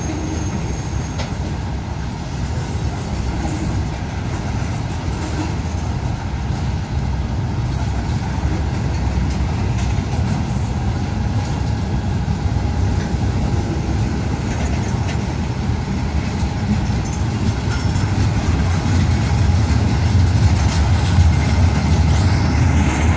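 Freight train cars (tank cars and covered hoppers) rolling past: a steady low rumble of steel wheels on rail, growing a little louder near the end.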